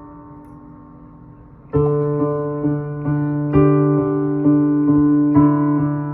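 Keyboard music: a held chord fades away, then a little under two seconds in a new phrase of repeatedly struck chords begins.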